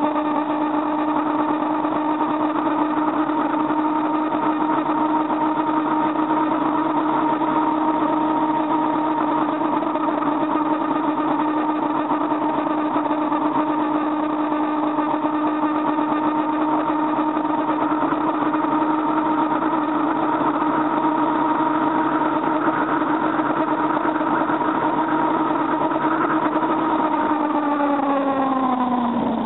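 Motor scooter engine running at a steady cruising speed, heard from on board. Near the end its pitch falls as the scooter slows down.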